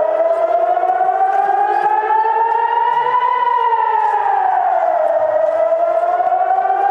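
Civil-defence air-raid siren wailing, its pitch slowly rising for about three seconds, falling for about two, then rising again: a warning of incoming rockets.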